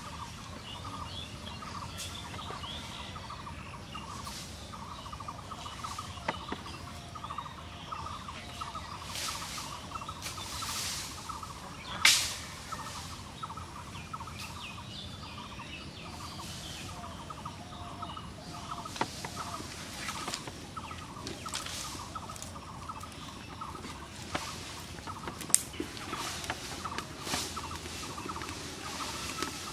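Dry sticks rustling and snapping as they are handled and fed to a small open fire, with one sharp crack about twelve seconds in and another near the end. Domestic fowl and small birds call throughout.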